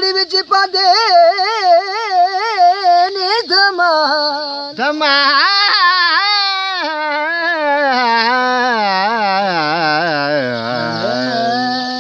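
A man singing a devotional qasida unaccompanied in a high, strong voice, with wavering, ornamented held notes. Over the second half the melody steps down to a low held note near the end.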